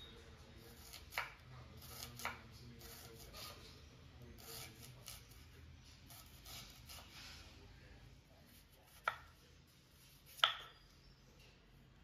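Kitchen knife chopping vegetables on a wooden cutting board: scattered sharp knocks of the blade striking the board, two about a second and two seconds in, softer ones through the middle, and the loudest two near the end.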